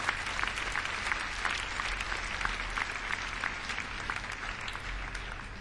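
Audience applauding, slowly dying down toward the end.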